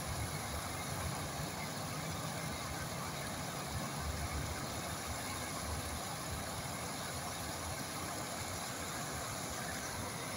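Flowing water rushing steadily, with a low rumble underneath.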